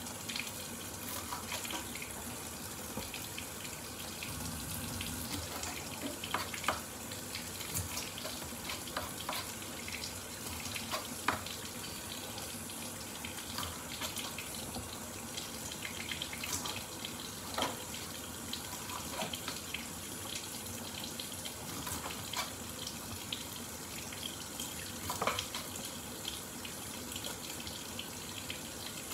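A kitchen tap running steadily, with scattered sharp knocks and clicks of a knife cutting raw shrimp on a board.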